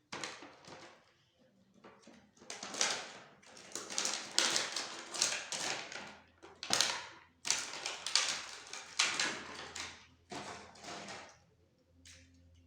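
Toy packaging being handled and opened: irregular bursts of rustling and crinkling that die away about eleven seconds in.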